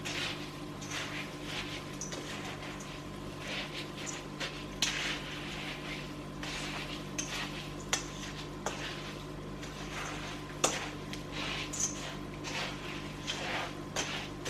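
A spoon stirring melted Copha through a bowl of dry chocolate-crackle mixture of puffed rice cereal: irregular scraping, rustling strokes with a few sharp knocks of the spoon against the bowl, over a steady low hum.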